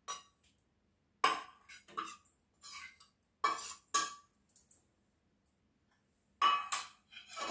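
A small stainless-steel bowl clinking against the rim of a steel mixing bowl as spices are tapped out of it: a string of sharp metallic clinks with a brief ring, spaced irregularly, then a louder few near the end.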